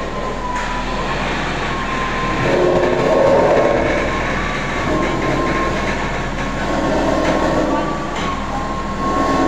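A crane running steadily with a constant whine as it hoists a large steel duct section, swelling louder a few times.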